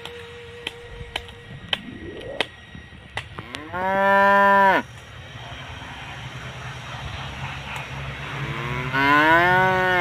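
Cattle mooing: two long, loud moos, the first about four seconds in and the second near the end, rising and then falling in pitch. A few sharp clicks come before them, and a low steady hum sits underneath in the second half.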